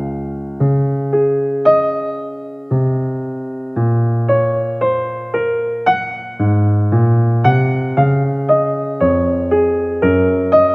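Background piano music: a slow melody of single notes, about two a second, each struck and dying away over low bass notes.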